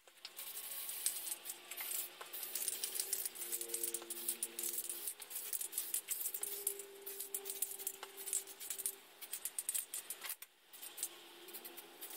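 Aerosol spray-paint can in use: the mixing ball rattling and clicking rapidly as the can is shaken, over the hiss of paint spraying onto plastic model parts. It stops briefly a little after ten seconds in.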